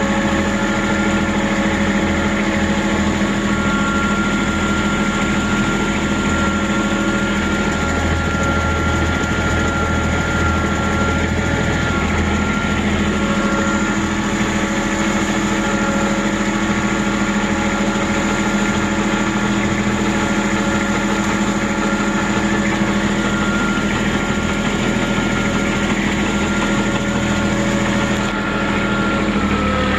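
Engine running steadily at a constant speed, a continuous even drone whose pitch shifts slightly down near the end.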